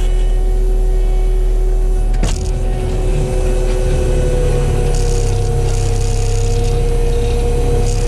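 Kubota SVL95 track loader's diesel engine working under load, driving a Promac HSM60 drum mulcher with a steady whine as it grinds into the ground. A single sharp knock comes a little after two seconds in, and later there is a gritty hiss of debris being chewed up.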